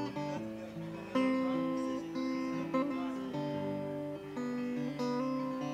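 Acoustic guitar strumming sustained chords, the chord changing about every second.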